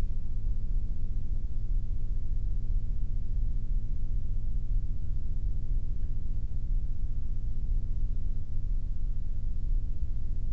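Steady low-pitched hum or rumble of background noise, with no distinct tool sounds or impacts.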